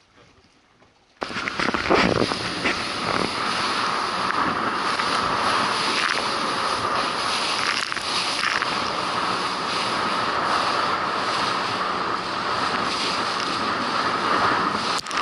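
A rigid inflatable boat running fast through the waves: wind on the microphone and rushing water and spray over a steady drone. It starts suddenly about a second in.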